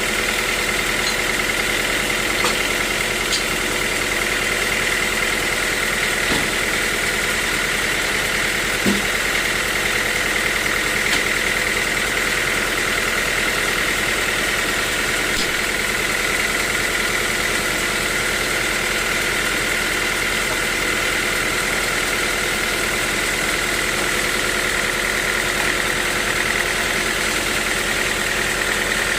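Sawmill machinery running steadily: an even engine-like drone with a continuous whine, and a few light knocks through it.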